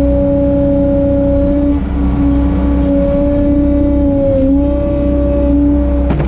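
Bobcat 743 skid steer running steadily at high throttle, a constant engine and hydraulic drone with a whining tone; its pitch sags briefly about four and a half seconds in.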